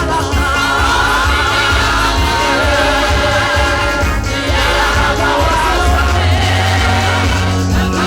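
Live gospel praise and worship music: voices singing over a band with heavy bass.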